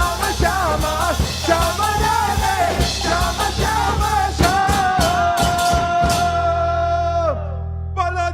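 Devotional band music: a sung melody over drums. The drumming stops about six seconds in while one long held note carries on over a steady low bass, then falls away shortly before the music starts up again at the very end.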